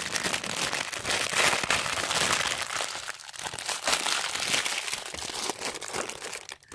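Packaging crinkling and rustling in dense bursts of small crackles as a smartphone kickstand is pulled out of it by hand, stopping shortly before the end.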